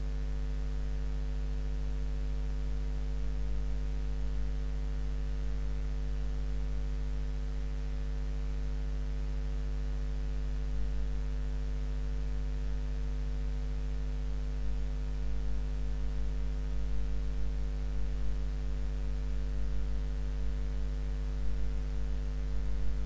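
Steady low electrical hum, like mains hum, with a stack of fainter steady tones above it.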